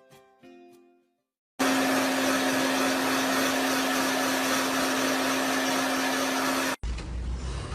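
A household appliance's electric motor running loud and steady with a hum, for about five seconds, cutting off abruptly. Before it, plucked-string music fades out.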